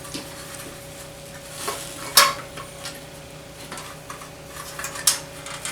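Foam seat cushion being worked loose from a pickup truck seat's metal frame: rustling and scraping with a few sharp clicks, the loudest about two seconds in, over a faint steady hum.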